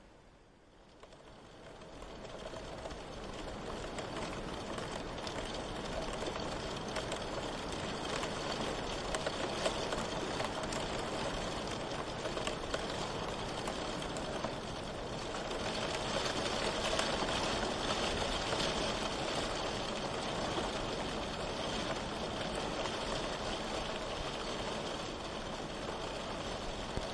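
Steady rain, a dense even hiss with fine drop patter, fading up from quiet over the first few seconds.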